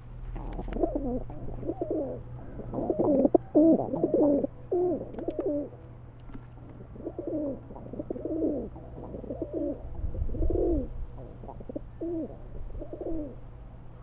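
Feral pigeons cooing: a long string of low, curving coos, with a short break about halfway through.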